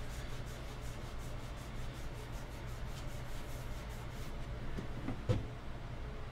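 A paper towel is rubbed back and forth under the fingertips over a painted, stenciled wooden chair seat, distressing the fresh paint. The rubbing strokes are faint and quick and stop about four seconds in. A brief click follows about five seconds in.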